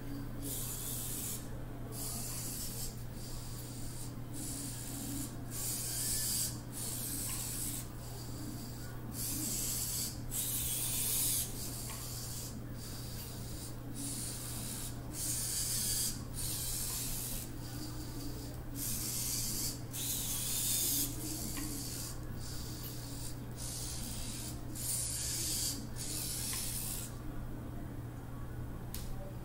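Servo motors of a small two-legged walking robot, a brief high whir with each movement, repeating about once a second as it steps along.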